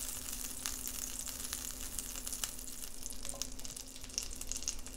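Butter melting and sizzling in a hot cast-iron skillet, a soft hiss scattered with tiny crackling pops as it foams.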